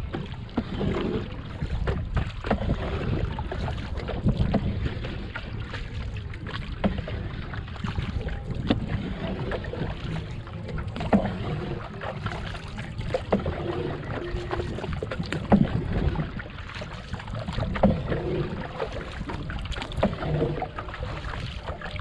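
Bamboo paddle working the water beside a small wooden rowing boat, with irregular splashes and knocks from the strokes. Steady wind noise rumbles on the microphone underneath.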